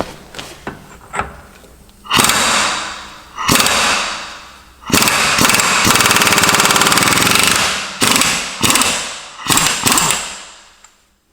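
Impact wrench with a 36mm socket hammering on a rear axle nut to break it loose. It runs in five bursts, the longest lasting about three seconds in the middle, after a few light knocks at the start.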